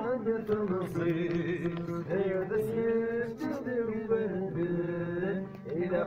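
Male voice singing a slow, chant-like song with long held notes.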